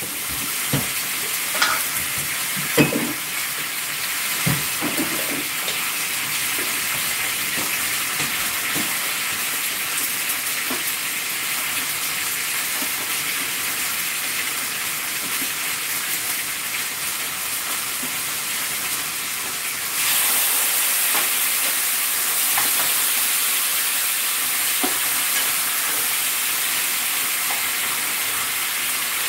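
Pork ribs frying in a pan, a steady sizzle with a few sharp clinks of a utensil in the first seconds. About twenty seconds in the sizzle turns suddenly louder and hissier.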